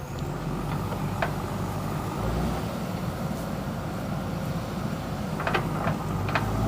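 A JCB 3DX backhoe loader's diesel engine running steadily, with a few sharp clanks: one about a second in and a cluster near the end.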